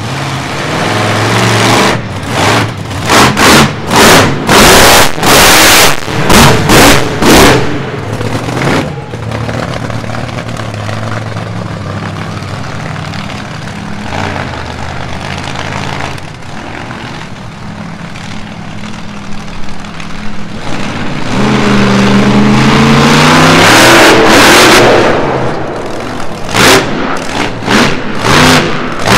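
Monster truck engine revving hard in a string of short, loud throttle blips, then running at a steady note. About two-thirds of the way in it swells into a long, loud rev that rises and falls, and sharp blips return near the end.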